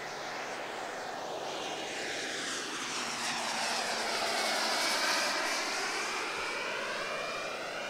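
A pair of radio-controlled Embraer EMB 312 Tucano scale models flying a pass in formation, their turboprop engines running steadily with a high whine; the sound swells to its loudest about five seconds in, with a sweeping, phasing quality, then begins to fade.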